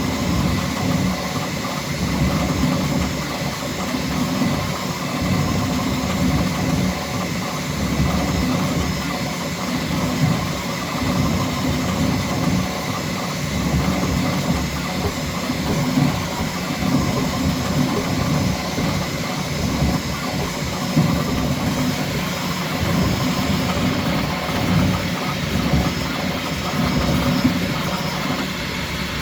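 Bambu Lab X1C 3D printer printing at its fastest speed setting: its motors buzz in quick, constantly shifting bursts as the print head darts about, over a few steady high tones.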